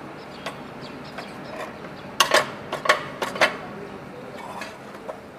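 Sharp metal clinks and clicks of a socket wrench working a 14 mm nut on a Honda GX100 engine's crankcase, with a quick cluster of about half a dozen loud ones a little past the middle.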